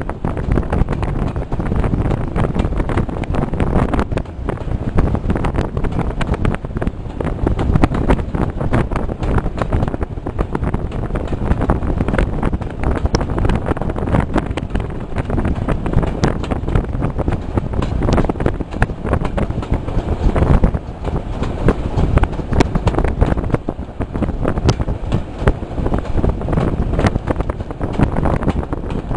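Wind buffeting the microphone at the window of a moving train, loud and gusting, over the train's running noise.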